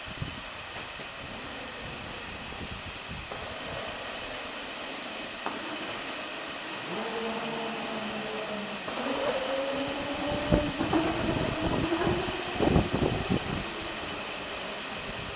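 Cardboard box rolling down a gravity roller conveyor: from about halfway, the spinning rollers give a hum that wavers in pitch, with several knocks and clatters as the box crosses the curved section, over a steady background hiss.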